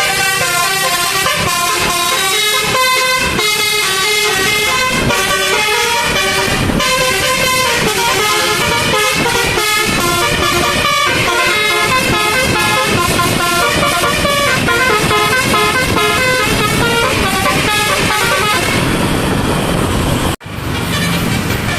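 A telolet basuri musical air horn, a set of vehicle air trumpets driven by an electronic module, playing a quick melody of changing notes. It breaks off abruptly near the end and starts again.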